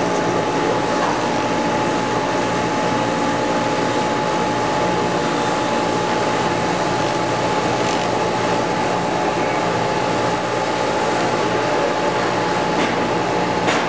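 Small motor-driven cutting tool running steadily with a constant whine, cutting into a hard casing that has not yet been cut through.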